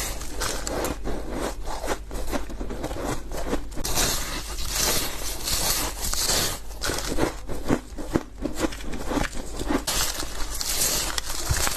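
Close-up crunching of white ice being bitten and chewed: a continuous run of sharp, crackly crunches, with louder bites now and then.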